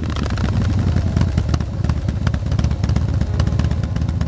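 KTM 1290 Super Adventure R's V-twin engine running steadily, a dense rumble of rapid firing pulses.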